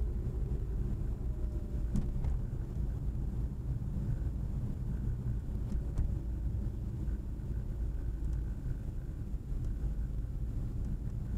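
Steady in-cabin engine and road rumble of a 1996 Mitsubishi Lancer 1.3 under way, with a light click about two seconds in.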